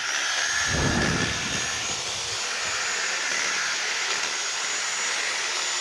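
Handheld power saw running steadily at full speed with a high whine, cutting through a tree branch; the cut is heaviest in the first two seconds.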